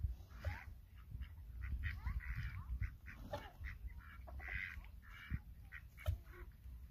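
Farmyard poultry calling: a string of short, raspy, nasal calls, a few clustered near the start, middle and end of the stretch, over a low rumble.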